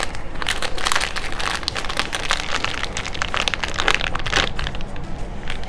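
A foil blind-bag packet being torn open and crinkled by hand: a busy, irregular run of sharp crackles.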